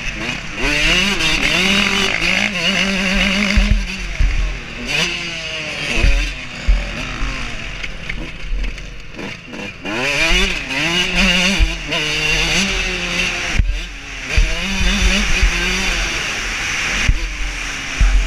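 Dirt bike engine revving hard and dropping back again and again as the rider accelerates, shifts and brakes around a motocross track, with wind buffeting the helmet-mounted microphone.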